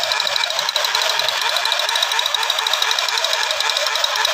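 Battery-operated toy gun firing its electronic machine-gun sound effect from its small speaker: a loud, fast stuttering pulse with a high shrill tone, held steady while the trigger is held.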